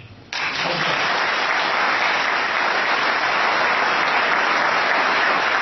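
Audience applauding: the applause breaks out suddenly just after the start, runs steady and dense, and cuts off abruptly at the end.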